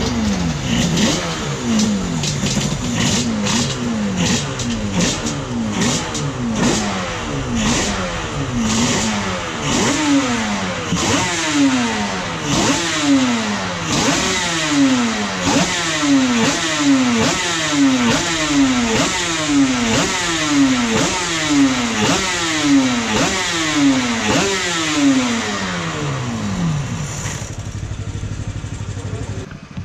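Honda Grand Prix racing motorcycle engine revved in repeated throttle blips. Each blip jumps up and falls away, at first small and quick, then bigger, a little more than once a second. Near the end it settles to a steadier note.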